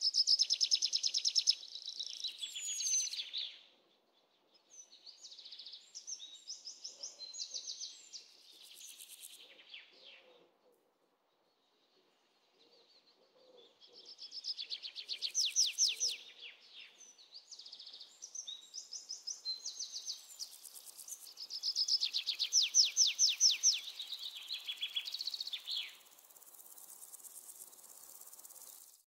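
Songbirds chirping and trilling in phrases of fast repeated high notes, each phrase a few seconds long, with short pauses about four seconds in and again around eleven seconds in.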